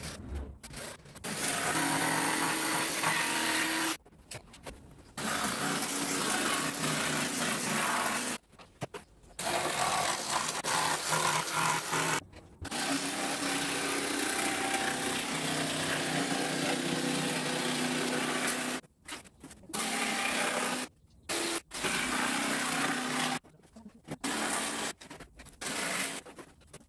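Cordless jigsaw cutting through 3 mm plywood, its motor and reciprocating blade running steadily in long runs. It stops and restarts several times, with shorter bursts near the end.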